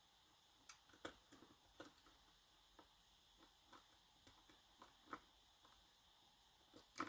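Faint, irregular ticks and clicks of a steel hook pick working the pin stacks of a Schlage Everest lock cylinder under tension, with a louder click near the end.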